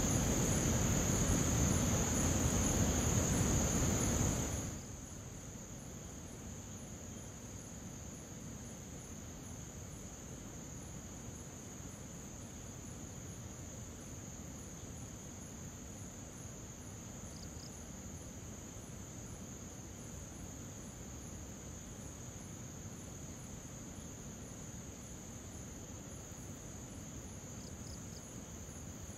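Steady high-pitched chirring of crickets at night. For the first four seconds or so a louder, even rushing noise lies under it and then cuts off suddenly.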